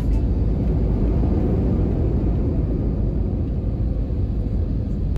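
Steady low rumble inside the cabin of an Airbus A320neo as it rolls along the ground after landing.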